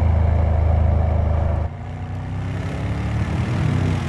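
Mercedes-AMG V8 engine running, loud and deep; about a second and a half in it drops suddenly to a quieter level, and the engine note then slowly rises as the car drives.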